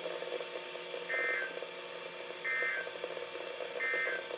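Three short bursts of warbling two-tone digital data, each under half a second, about a second and a half apart: the Emergency Alert System end-of-message code that closes the weather radio's flash flood warning.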